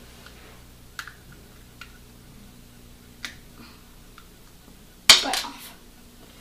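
Small plastic Lego bricks being worked apart by hand: a few faint clicks, then, about five seconds in, a loud snap and short clatter as the stuck pieces come free.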